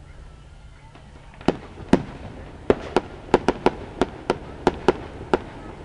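Aerial fireworks bursting: a string of about a dozen sharp bangs at irregular intervals, starting about a second and a half in, each followed by a short echo.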